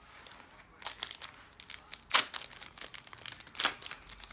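Plastic wrapper of a trading-card packet crinkling and tearing as it is opened, in irregular crackles, the sharpest about two seconds in and another about three and a half seconds in.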